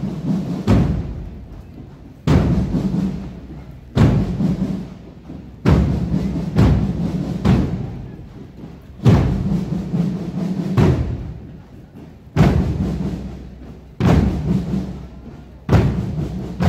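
Marching drum corps playing a slow parade beat: bass drums and cymbals struck together about every second and a half, each stroke booming and ringing out before the next.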